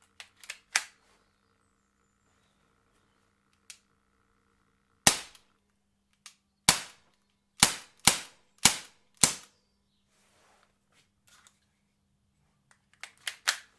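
Umarex Glock 19 CO2 BB pistol fired six times in about four seconds, each shot a sharp crack. It is preceded by a few small clicks as the magazine is seated in the grip, and near the end comes a quick cluster of clicks from handling the magazine.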